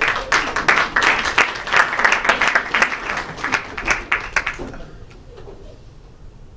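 Audience applauding between improv scenes, the clapping dying away about four and a half seconds in.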